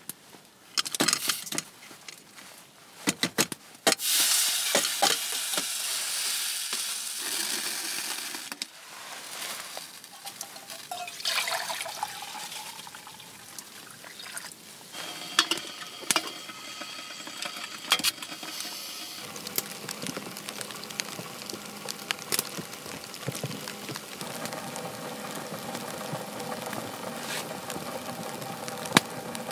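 Metal camp cookware clinks and knocks on a wood stove, and a loud hiss follows. Hot water is then poured from a pot into a metal mug.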